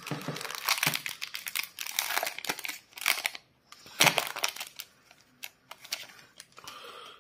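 Foil wrapper of a Yu-Gi-Oh booster pack crinkling and tearing as it is opened by hand, in irregular bursts. It is loudest in the first couple of seconds and again about four seconds in, then fades to faint rustling.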